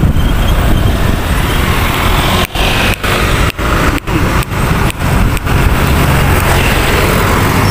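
Road traffic passing close by, with engine and tyre noise; a truck's low engine drone sets in over the last couple of seconds.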